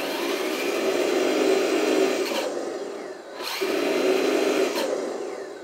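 Electric drive motor and two-speed gearbox of an RC IVECO 4x4 dump truck running in high gear, a steady whir. It comes in two spells, the first about three seconds long, then a short break and a second spell that fades away near the end.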